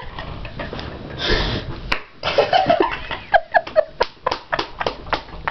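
Hands slapping together in a quick run of sharp smacks, several a second, starting about two seconds in.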